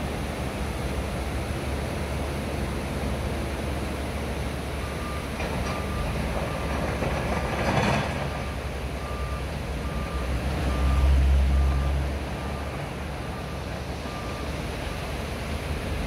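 Floodwater river rushing in a steady roar. A reversing alarm beeps a little faster than once a second from about five seconds in, stopping near the end, and a low engine rumble swells and fades about eleven seconds in.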